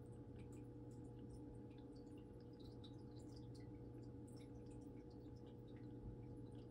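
Faint, steady hum of a small aquarium filter, with scattered tiny ticks of bubbles and drips at the water.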